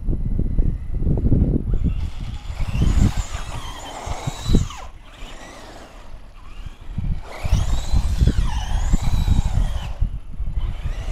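Radio-controlled cars driving on asphalt, their motors whining up and down in pitch as they speed up and slow, in two spells, over a steady low rumble.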